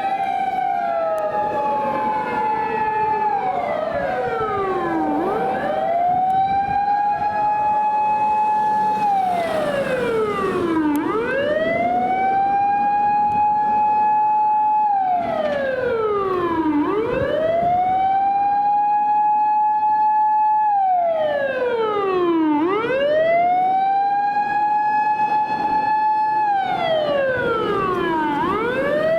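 Japanese fire apparatus siren wailing slowly: each cycle climbs to a high tone, holds it for about three seconds, then falls, repeating about every six seconds. A second siren overlaps, out of step, in the first five seconds or so.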